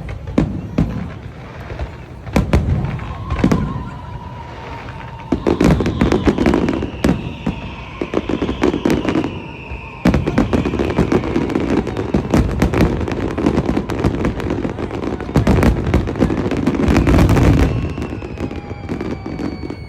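Fireworks display: a rapid, dense run of bangs and crackles with low rumbling booms, and long whistles slowly falling in pitch through the middle and again near the end.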